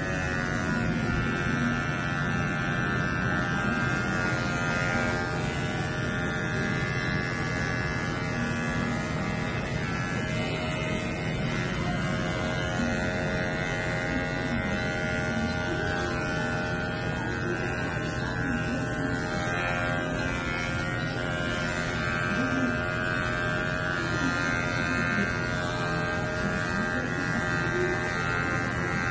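Corded electric pet hair clippers running with a steady buzz as they are worked through a small white dog's long fur.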